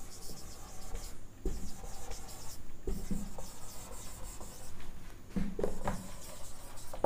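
Marker pen writing on a whiteboard: the felt tip squeaks and rubs in short strokes as letters are written, with a few soft low thuds among them.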